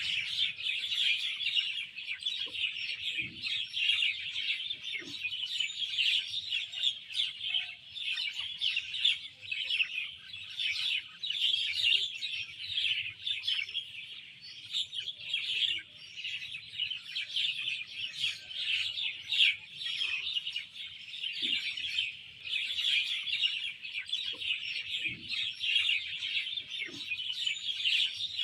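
Dense chorus of small songbirds chirping and twittering, many overlapping calls with no let-up.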